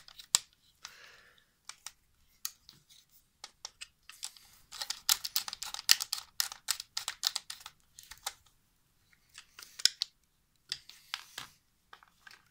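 Quick irregular clicks, ticks and light knocks of parts being handled and fitted together while a microwave oven transformer arc setup is assembled, with a dense flurry of clicks in the middle.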